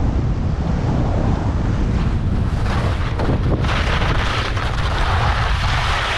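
Wind buffeting a GoPro's microphone as a skier moves downhill, a steady low rumble, with the hiss of skis sliding over packed snow that grows louder and brighter about four seconds in.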